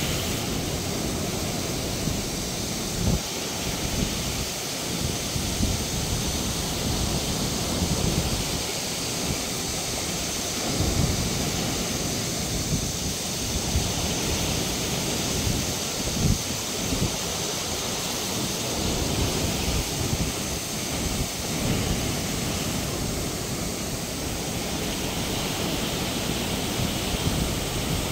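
Sea waves breaking over rocks and washing up a sandy beach in a continuous surf wash, with wind gusting on the microphone as an uneven low rumble.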